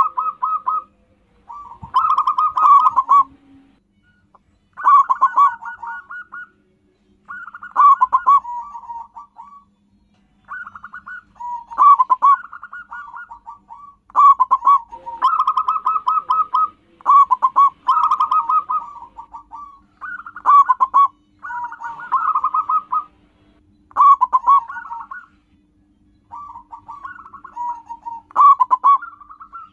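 Zebra dove (perkutut) cooing: short, rapid, stuttering trilled phrases, repeated about every two seconds.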